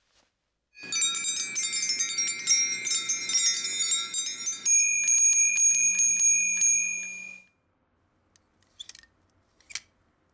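Hanging brass bells jangling, a rapid clatter of many high ringing tones for about four seconds. Then a few slower strikes ring on a steady high note and die away, with faint ticks near the end.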